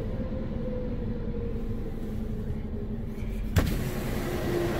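Car's power window motor whirring as the side glass goes down, its pitch sinking slightly, then a thunk about three and a half seconds in as the glass stops. A steady low hum runs underneath.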